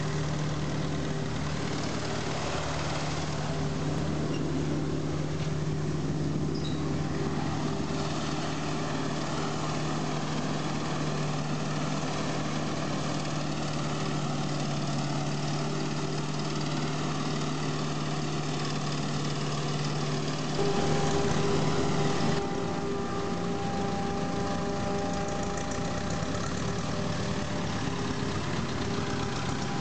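Engines of a forage harvester and a tractor running steadily while the harvester chops maize into the tractor's trailer, a constant machine drone with a steady hum. About two-thirds of the way through, a higher tone joins and the sound briefly gets louder.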